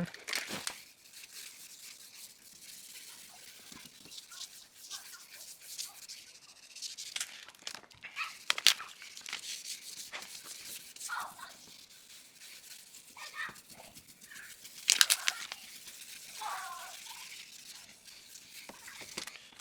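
Hand wet-sanding of a plastic headlight lens with a 2000-grit abrasive pad and water: an irregular scratchy scrubbing, with a few louder rasping strokes and a couple of short squeaks of the pad on the plastic.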